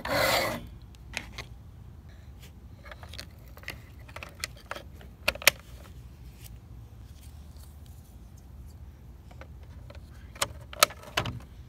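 Large plastic Lightning McQueen toy car being handled: a short rustling burst at the start, then scattered light clicks and taps of plastic as it is turned over and set on the table.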